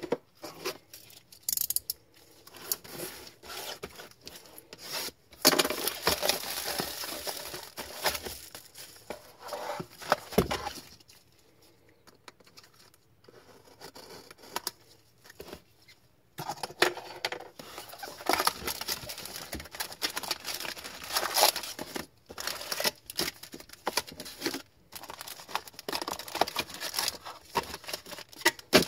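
Cellophane shrink wrap being torn off a trading-card hobby box and crumpled, in loud crinkling bursts. Mid-way there is a quieter stretch of small scrapes as a utility knife slits the box open. Then the foil card packs rustle and crinkle as they are lifted out and handled.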